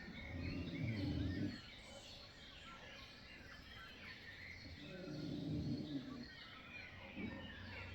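A sleeping woman snoring, two long snores about four seconds apart, with birds chirping and singing throughout.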